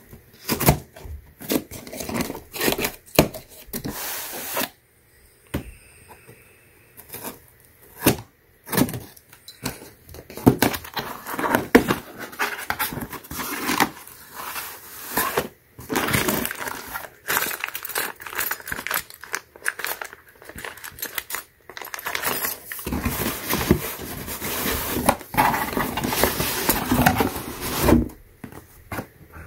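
Cardboard shipping box being opened: a utility knife slits the packing tape, then cardboard flaps scrape and tear, with irregular knocks and a long stretch of rustling as the box and its plastic-wrapped contents are handled.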